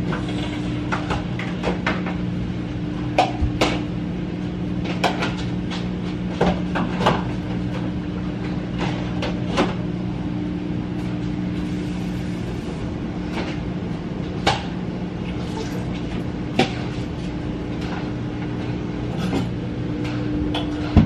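Kitchen clatter: plates, utensils and cabinet doors being handled, giving scattered sharp clicks and knocks at irregular intervals over a steady appliance hum.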